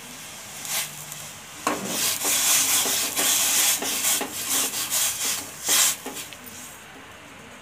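Granulated sugar added to hot water in a steel pan and stirred with a metal spoon: the grains scrape against the pan bottom in a rough, gritty rasping. It comes in one short stroke about a second in, then runs almost continuously from about two seconds in and stops about six seconds in.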